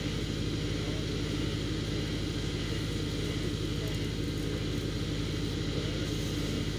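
Fire engine's diesel running steadily at idle, a constant low hum that does not change.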